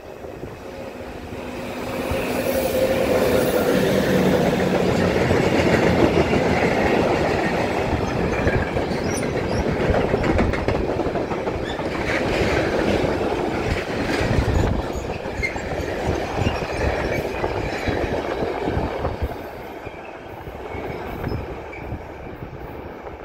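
Freight train passing close by: its wagons' wheels clatter over the rail joints in a steady rush of noise that swells about two seconds in and eases off near the end.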